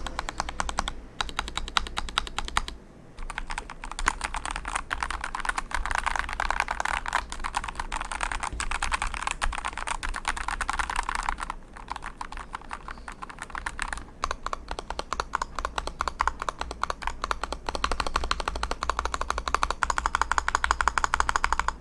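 Continuous fast typing on a Vortex M0110 mechanical keyboard with linear Gateron G Yellow Pro switches: a dense stream of keystroke clacks, broken by short pauses about 3, 12 and 14 seconds in.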